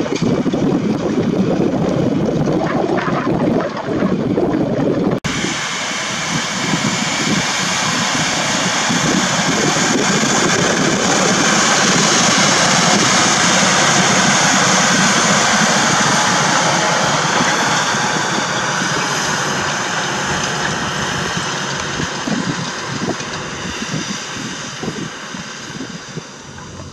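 Case IH Quadtrac 620 tractor's big diesel engine working under load as it pulls a wide cultivator, with wind on the microphone for the first few seconds. After a cut it passes close by, a steady high whine over the engine, loudest midway and then fading.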